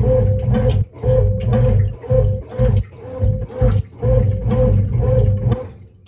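Brastemp BWF08 top-loading washing machine agitating, its mechanism freshly overhauled. The motor hums and the agitator swings back and forth about twice a second, each stroke churning the water and clothes, until it falls quiet near the end.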